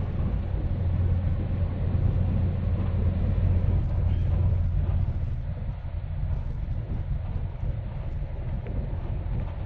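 Car driving, heard from inside the cabin: a steady low engine-and-road rumble with an even hiss over it.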